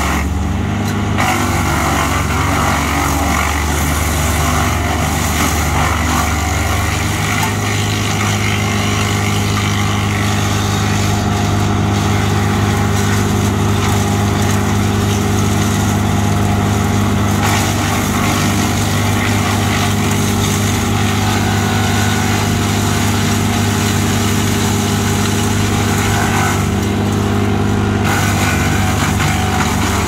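Diesel-engined towable 6-inch woodchipper running steadily at working speed while branches are fed in and chipped, the engine's hum under a continuous grinding rush of chipping. The chipping noise eases briefly about a second in and again near the end.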